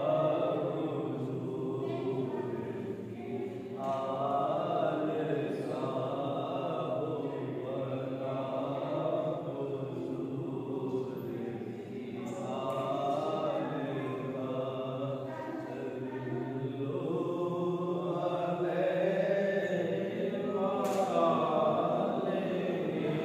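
Devotional chanting: voices held on long melodic phrases with short breaks between them, without ordinary speech.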